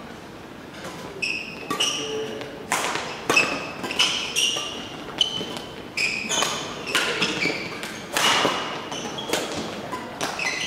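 Badminton rally: rackets sharply striking the shuttlecock at irregular intervals, mixed with players' shoes squeaking and thudding on the court floor.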